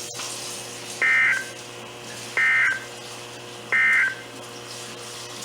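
Emergency Alert System end-of-message code on NOAA Weather Radio: three short, buzzy digital data bursts about 1.3 seconds apart, over faint receiver hiss. The bursts signal the end of the alert broadcast.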